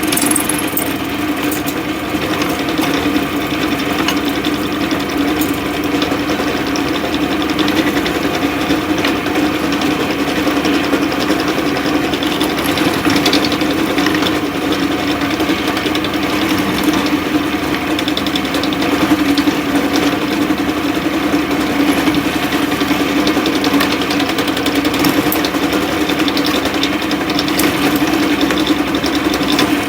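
An electric power tool motor running steadily: a constant hum with a rough hiss above it.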